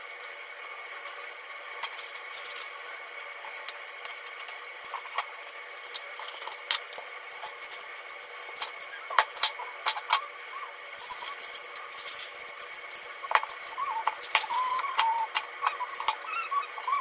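Kitchen knife knocking on a wooden cutting board as an onion's ends are cut off and its skin is pulled away, with sharp clicks of chopsticks and the blade. From about halfway a cat meows over and over in short wavering calls.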